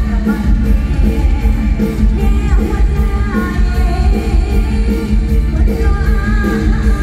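Live Thai mor lam band music played loud through a concert PA, with a steady beat and a woman singing into a microphone over it.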